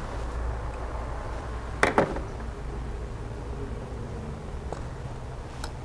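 Two sharp clicks close together about two seconds in, and a faint click near the end, over a low steady hum: the knocks of an ignition coil being unplugged and pulled from the engine.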